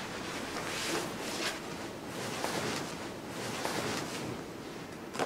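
Towel being rubbed over wet hair: a series of soft cloth swishes and rustles, with a short sharp click right at the end.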